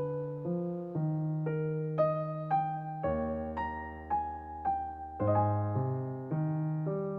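Calm background music: a gentle piano or electric piano melody of notes struck about twice a second over sustained lower notes, with a deep bass note held for a couple of seconds midway.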